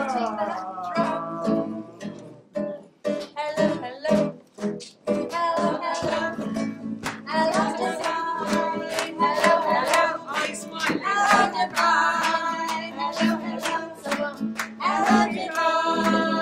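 Live music: a strummed guitar and a singing voice, with many sharp hand strikes on a frame drum.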